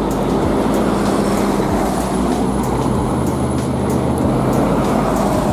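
A motor vehicle engine running steadily, a low even drone, with a thin high whine in the middle.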